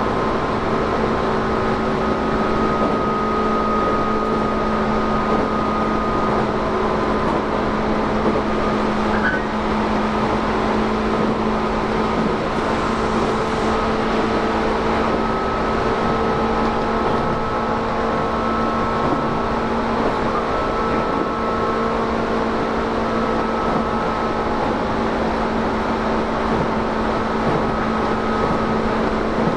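Tobu 10000 series electric train heard from inside motor car MoHa 15602: its traction motors and gears give a steady whine of several held tones over the rumble of wheels on rail, running at an even speed.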